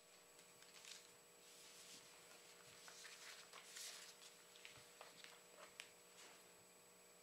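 Faint rustling of book pages being turned and leafed through, with a few light clicks between about five and six seconds in, over a low steady hum.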